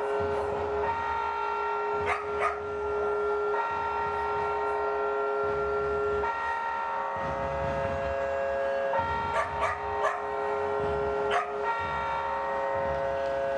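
Several steady held tones sounding together like a drone chord, shifting to a new set of pitches every couple of seconds over a low rumble. Short sharp sounds cut in twice about two seconds in, and again several times near nine to eleven seconds in.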